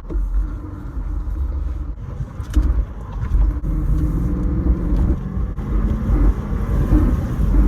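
A Cadillac's engine and road rumble heard from inside the cabin, getting louder as the car moves off from a stop in traffic.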